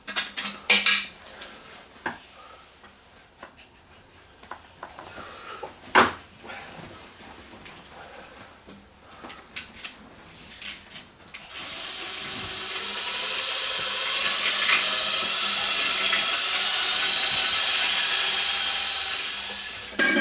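Tools knocking and scraping on the rusty metal of an old drain sump, with one hard knock about six seconds in. About halfway through, a steady harsh noise starts and runs for around eight seconds before stopping.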